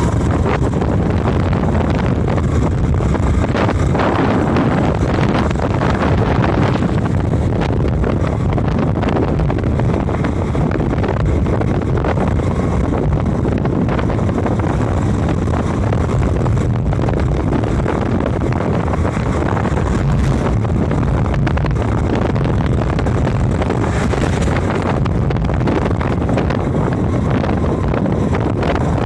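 A moving road vehicle running steadily, its drive and road noise rushing and low, with wind buffeting the microphone throughout.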